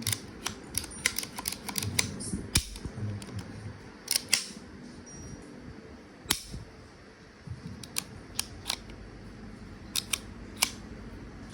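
Irregular sharp clicks and small snaps of Hi-Capa airsoft pistol parts being handled and fitted together during reassembly, some coming in quick clusters of two or three.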